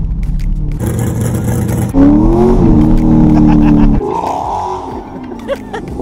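Car engine running; about two seconds in it gets louder and its pitch rises, then holds steady for about two seconds before dropping back.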